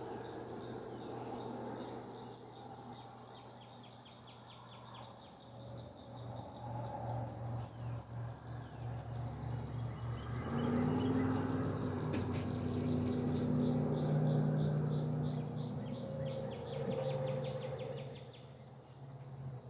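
A motor engine running with a steady low hum, growing louder about halfway through. Insects chirp in rapid trains throughout.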